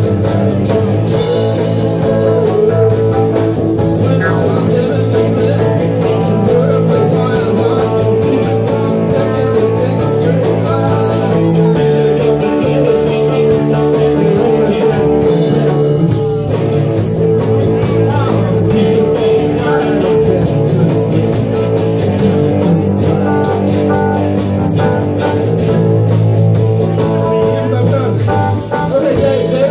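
Live band jamming loudly: electric guitar over drums, with sustained notes.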